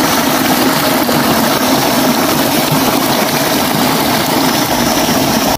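Water gushing steadily out of an outlet in a grassy bank and splashing loudly into the shallow water below.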